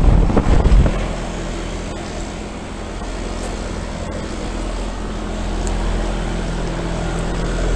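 Trane outdoor air-conditioner condensing unit running: a steady hum from its compressor and condenser fan. Wind buffets the microphone with a loud rumble in the first second.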